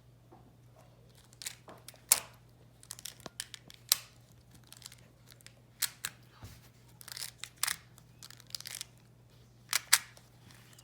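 Plastic magnetic building tiles clicking and snapping together as they are handled and fitted edge to edge: irregular sharp clicks, a few louder snaps among them.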